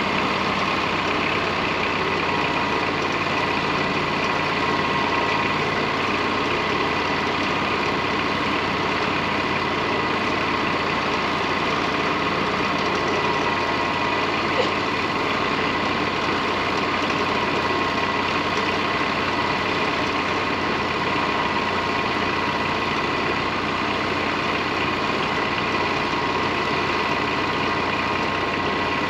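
An engine idling steadily, with a single small click about halfway through.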